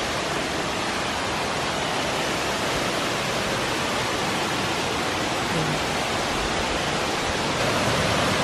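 Steady rush of a waterfall's falling water, growing a little louder near the end.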